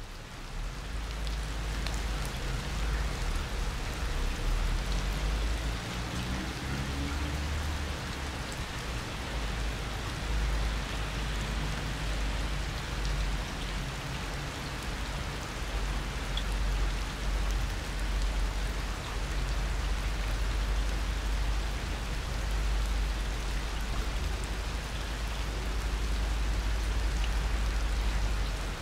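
Steady rain falling on concrete and into a puddle: a dense, even hiss of drops, with a low rumble underneath.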